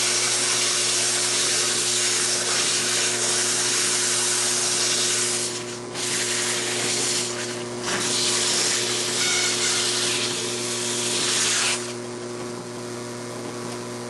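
Sandpaper rubbing against an oak disc spinning on a threaded-rod arbor, a steady hiss over the hum of the power tool driving it. The sanding lifts off briefly twice and stops about twelve seconds in, while the motor keeps running.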